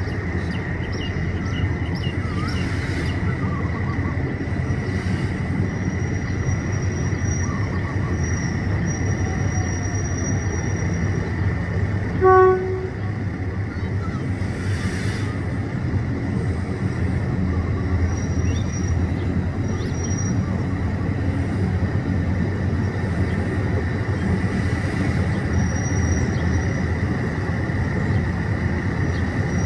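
GEK-class diesel locomotive No. 4045 running steadily as it hauls passenger coaches across a steel truss bridge, a continuous low rumble. One short horn blast sounds about twelve seconds in.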